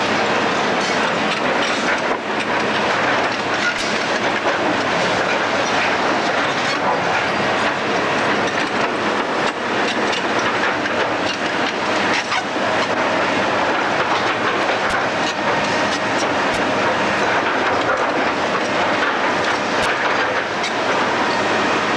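Demolition of a building: a steady, loud grinding and crunching of breaking masonry and rubble, with scattered sharp cracks.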